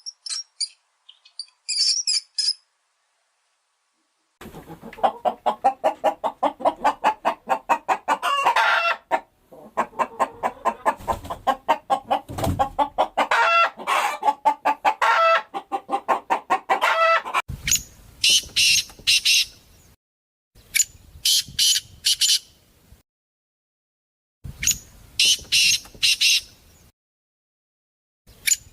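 Chickens clucking in a long, rapid run of pitched clucks, after a few brief high chirps. This is followed by three separate bursts of high-pitched calls.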